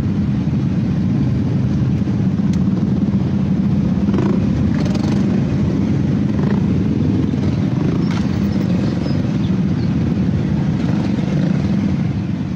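Motorcycle engines running in a traffic jam: a steady, loud, low drone.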